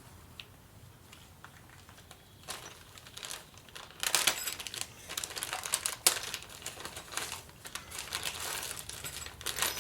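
Plastic packaging bags crinkling as they are handled, starting about two and a half seconds in and getting louder from about four seconds in, with one sharp click about six seconds in.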